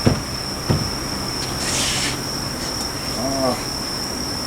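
Two light knocks, then a short hiss, over a steady high-pitched whine and a low hum.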